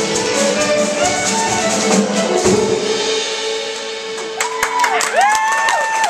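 Chamber orchestra with solo fiddle playing the last bars of a reel, ending on a held closing note. Audience applause and cheering break out about four and a half seconds in.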